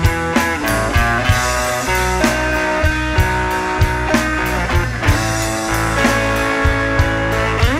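Rock band playing an instrumental passage: electric guitar lead with held notes and a quick upward slide near the end, over bass and drums.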